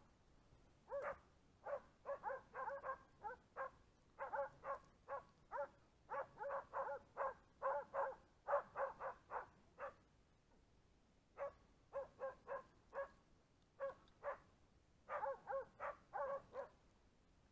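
Hunting dogs barking in quick runs of short barks, with a break of about a second and a half midway; the sound of dogs baying a wild boar.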